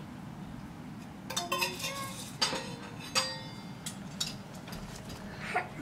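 Small stainless-steel toy pots, lids and utensils clinking against each other as they are handled. A string of sharp metallic clinks with brief ringing starts about a second in.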